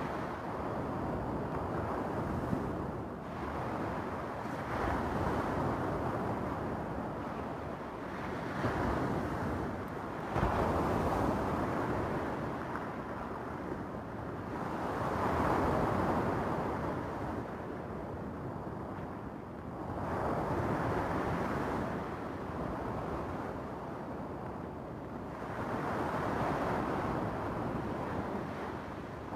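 Small waves breaking and washing up over a beach of rounded stones, the surf swelling and easing every few seconds.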